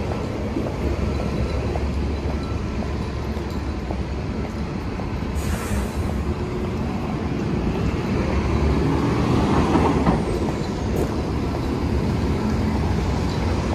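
Street traffic: a steady low rumble of vehicles, with a short hiss about five and a half seconds in and a vehicle passing louder around nine to ten seconds.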